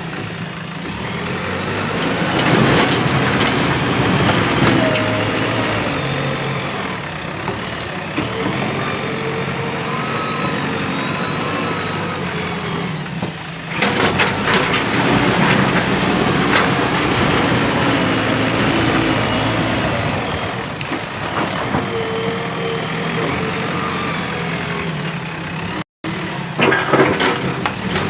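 JCB 3DX Plus backhoe loader's diesel engine running under working load, its pitch rising and falling as the hydraulics are worked. About halfway through, and again near the end, there is a clatter of knocks.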